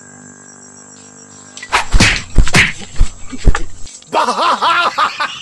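Long bamboo pole whacking and thrashing through a tree's branches and leaves: a faint steady insect drone, then several loud sharp strikes and crashes close together about two seconds in. A man's vocal exclamations follow near the end.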